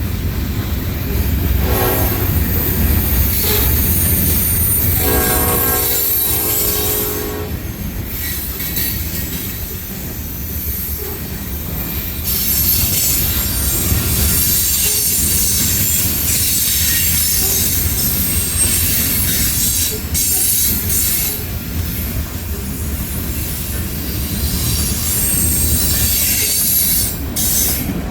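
Union Pacific freight train passing, led by an SD70AH locomotive whose air horn sounds a short blast about two seconds in and a longer one a few seconds later. Then the cars roll by with a steady rumble and high-pitched steel wheel squeal.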